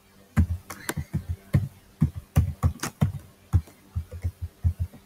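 Typing on a computer keyboard: an irregular run of key clicks, several strokes a second, each with a dull thud, starting about half a second in.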